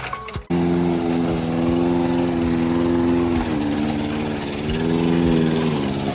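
Small gasoline engine of a lawn mower running steadily through tall grass, starting abruptly about half a second in. Its pitch sags briefly around the middle and again near the end as the engine takes on load.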